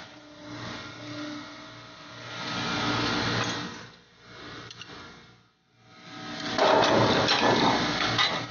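Drilling rig floor machinery running: a steady engine hum under rushing mechanical noise that swells and fades. It drops almost to nothing about five and a half seconds in, then comes back at its loudest with clicks and clanks near the end.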